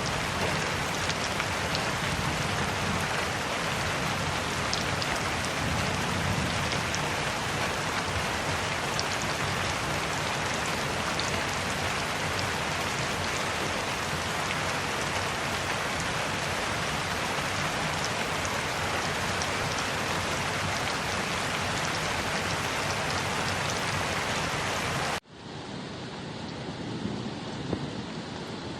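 Steady heavy rain. About 25 seconds in it cuts off abruptly into a quieter, duller rain with a few louder single drops.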